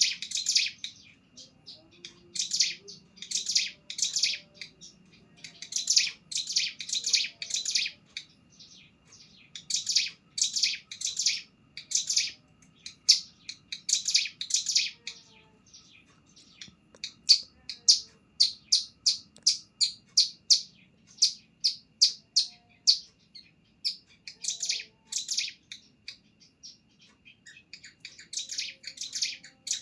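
Ciblek gunung (cigun), a small prinia, singing in repeated phrases of rapid, high chirps separated by short pauses, with a longer run of evenly spaced notes in the middle. It is a young bird still practising its continuous 'ngebren' song.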